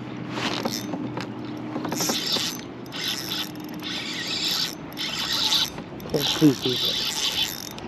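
Spinning fishing reel cranked in short bursts, about once a second, a whirring, ratcheting mechanical sound as a fish is played on a bent rod.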